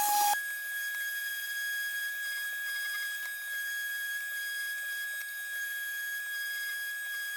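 Woodworking machine running with a steady high-pitched whine. A louder, noisier stretch of the machine cuts off just after the start, and the quieter whine holds at one pitch after that.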